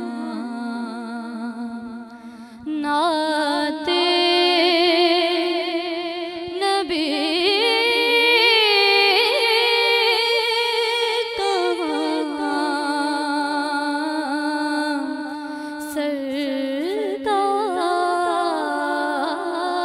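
A woman reciting a naat, singing unaccompanied into a microphone in long held notes with vibrato and melodic ornaments, with a brief pause about two seconds in.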